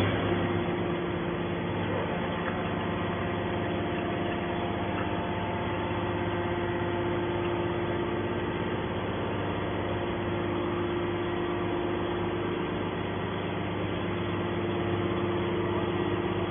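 Small hydraulic scrap metal baler's motor and pump running with a steady hum.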